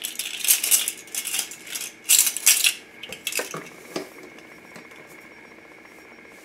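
A set of plastic measuring spoons on a ring clattering against each other as they are handled, in several short bursts of rattling over the first four seconds.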